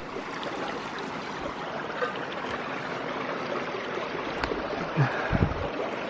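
Steady rush of a flowing creek, with a couple of brief low thuds about five seconds in.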